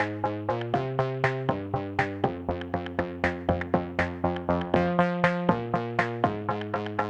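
Background electronic music: a fast, even run of synthesizer notes, about four or five a second, over held chords that change every second or so.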